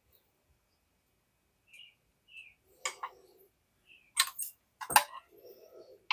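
Sharp clicks and knocks of a 1950s metal steam iron and its parts being handled and turned over, several in all, the loudest about four and five seconds in, some followed by a brief rattle. Faint short high chirps come in between.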